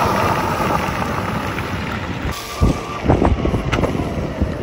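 72-volt electric mini moto (a converted Razor MX500) being ridden, with wind rushing over the microphone and a thin motor whine that comes and goes. A few heavy thumps come from about two and a half to three and a half seconds in.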